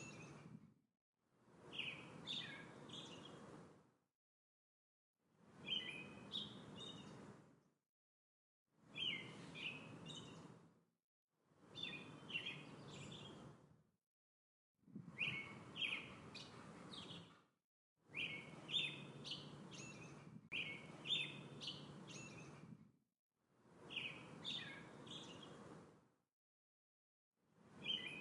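Songbirds chirping in short bursts of about two to three seconds, each fading in and out over a soft background hiss and split by gaps of dead silence, the same chirping phrase coming back about nine times: a short birdsong recording played on a loop.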